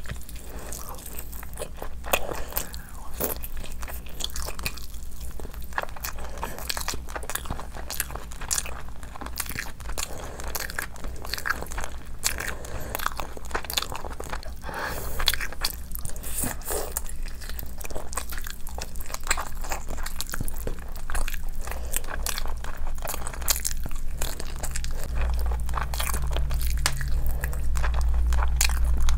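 A person biting and chewing curried meat pulled off the bone, with many short, sharp mouth clicks and smacks as she eats. A low steady hum rises under it near the end.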